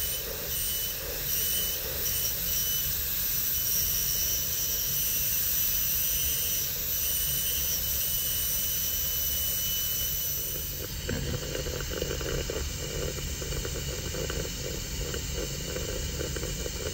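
High-speed dental handpiece spinning a bur against a model tooth, a steady high-pitched whine with hiss, cutting a crown preparation. About eleven seconds in the high whine drops away and a rougher, lower noise continues.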